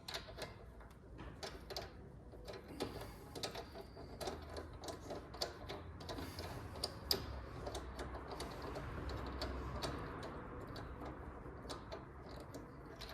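Hand ratchet clicking rapidly as a loosened 19 mm suspension bolt is spun out. About eight seconds in the clicking gives way to a steadier rubbing noise.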